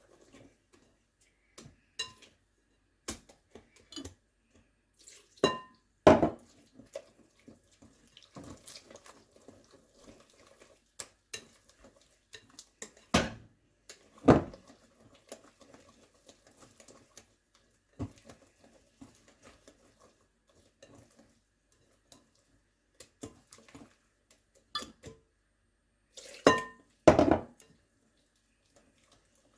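A spoon clinking and knocking against a bowl at irregular intervals while batter is stirred, with a few louder knocks that ring briefly.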